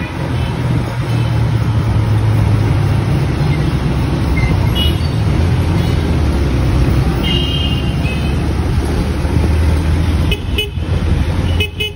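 Motorcycle engine running under way in city traffic, with short vehicle horn toots several times: about five seconds in, around seven and a half seconds, and near the end.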